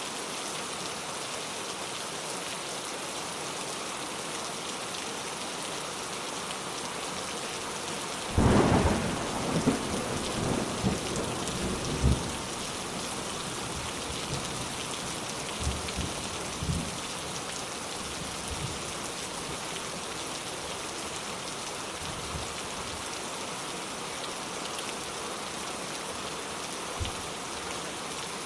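Steady rain falling, with a thunderclap about eight seconds in that rumbles on for a few seconds, and a few fainter low rumbles of thunder later.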